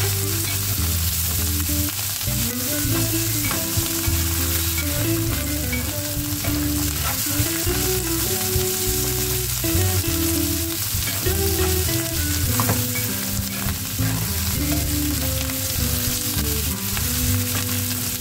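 Split peas and tomato paste sizzling in hot oil in a nonstick pan, stirred and scraped with a spatula with occasional light clicks. Background music plays underneath.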